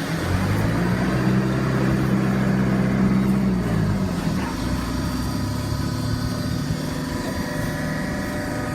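Hydraulic baling press running: a steady machine hum, with a louder pitched drone that comes in just after the start, holds for about three seconds and drops away about four seconds in.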